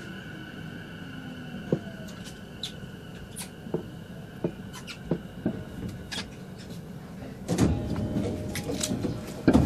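Inside a JR East E233-7000 series commuter train car, motor car MoHa E233-7004: a steady high electrical whine with scattered light clicks and knocks. From about three-quarters of the way in, louder knocks and a low rumble join in.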